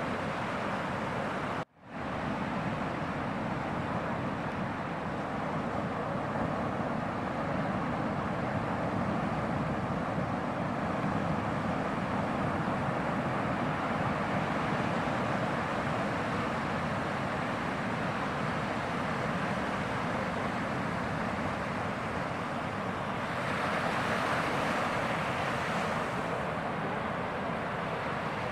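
Ocean surf breaking and rushing in a steady roar, with wind on the microphone. It cuts out for an instant about two seconds in and swells louder for a couple of seconds near the end as a wave breaks.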